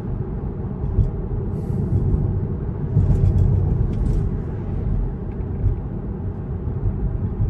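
Road and tyre noise inside a Tesla's cabin at about 45 mph: a steady low rumble with no engine note, and a few faint ticks.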